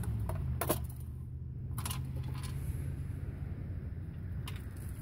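A few light metallic clicks and taps from a galvanized tin mouse trap being handled.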